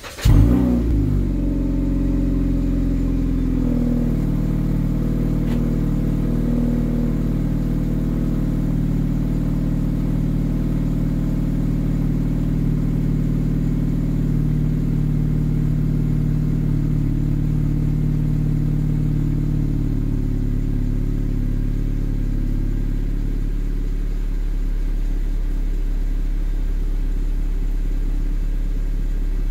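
Cold start of a 9th-generation Honda Civic with a 2.5-inch mid pipe, resonator delete and 2.5-inch axle-back exhaust. A very brief crank catches into a flare of revs, which falls away over the first few seconds. The engine then idles steadily through the exhaust tip.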